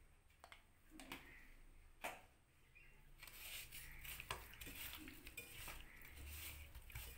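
Faint handling sounds of cut fish pieces being rubbed with salt and turmeric in a steel bowl: a few light taps against the metal at first, then, about three seconds in, busier wet rubbing and scraping with small knocks of fish on the bowl.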